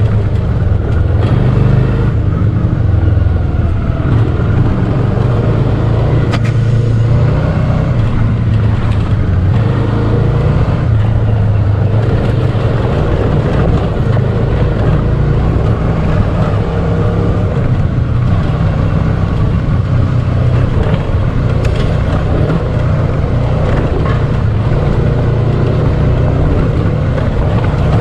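Dual-sport motorcycle engine running steadily while riding.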